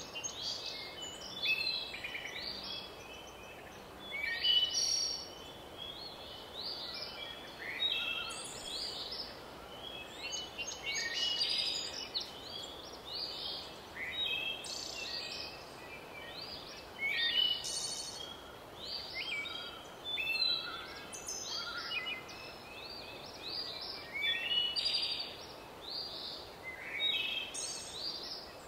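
Songbirds singing: short, high chirps and trills repeating every second or two over a faint steady hiss.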